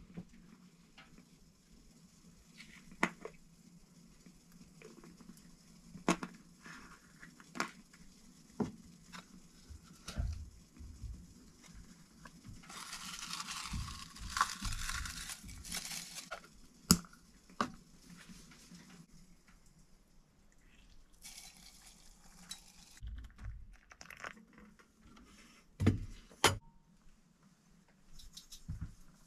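Small metal tins and glass jars handled on a wooden shelf: scattered light clicks and a few sharp knocks as lids come off and containers are set down. A little under halfway through, a rustling hiss of dried linden flowers being tipped into a small tin, with a shorter rustle later on.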